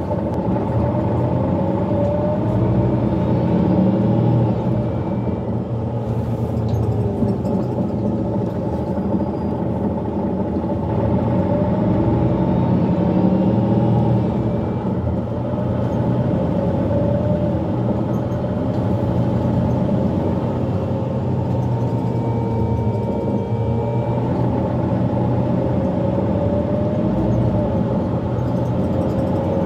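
Cabin sound of a Mercedes-Benz Citaro G articulated bus with a Voith automatic gearbox on the move: the engine and drivetrain run with a low rumble and a whine that rises in pitch as it picks up speed a few times, over road noise.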